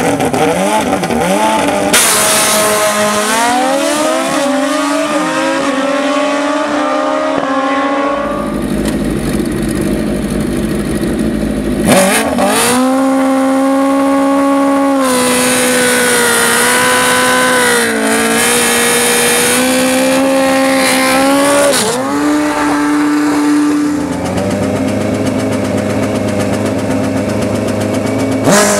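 High-revving racing engines of drag-racing four-wheelers or bikes, revving hard and holding high revs in several runs, with abrupt changes in pitch between them.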